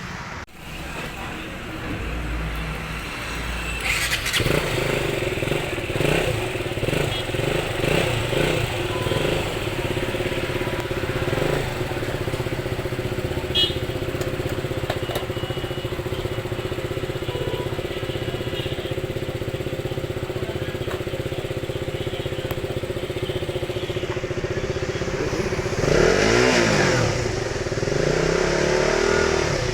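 Motorcycle engine catching about four seconds in and running steadily, with uneven throttle blips soon after it catches. Near the end it is revved up and let back down. The bike's battery is discharged, so the engine has to be started and kept running without it.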